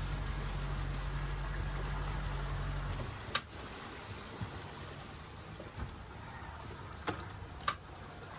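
Speedboat engine idling low, cutting off about three seconds in, leaving water trickling around the boat, with three sharp knocks.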